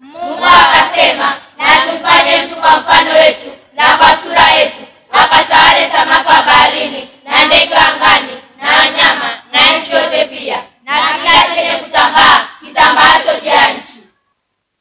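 A group of children's voices in unison, in short phrases of a second or so broken by brief pauses.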